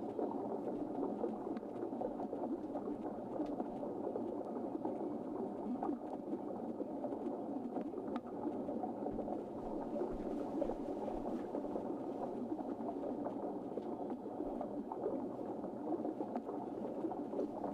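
Muffled underwater churning from a FiFish V6 underwater drone's thrusters, heard from underwater, with a faint steady hum and scattered small clicks.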